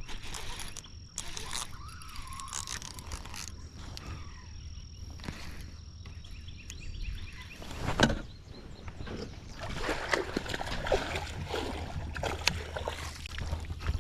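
Water sloshing and splashing around a fishing kayak, with a sharp splash about eight seconds in and busier splashing and movement after it, over a low steady hum.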